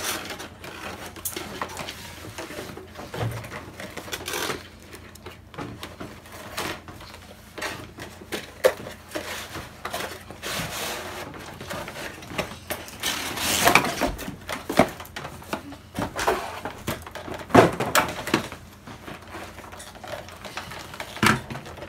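Toy packaging being opened and handled: irregular rustling, crinkling and scraping of cardboard and plastic, with scattered light knocks and clicks.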